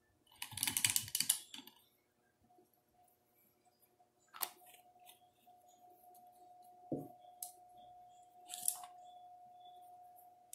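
Small handling noises of painting supplies on a work table: a rustling scrape about half a second in, a sharp click around four seconds, a light knock around seven seconds and a brief rustle near nine seconds, over a faint steady tone.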